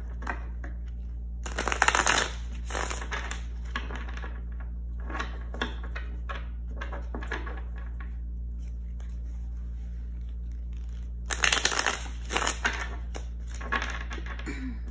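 A deck of tarot cards being shuffled by hand: two louder bursts of riffling about a second long, one near the start and one about eleven seconds in, with softer card rustles and taps between, over a steady low hum.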